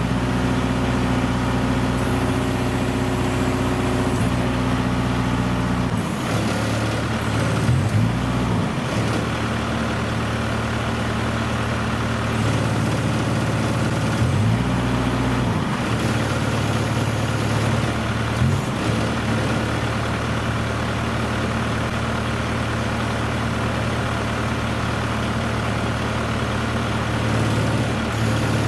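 Semi truck's diesel engine running steadily while a container sidelifter works, its pitch briefly dipping and recovering four times. A couple of short air hisses come in partway through.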